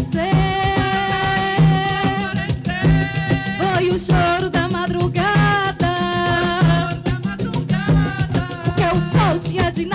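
Live coco de roda band music: a steady, even drum beat under a held melodic line that slides between notes.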